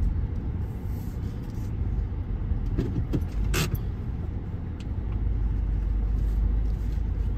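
Car running, heard from inside the cabin as a steady low rumble, with a few short clicks about three seconds in.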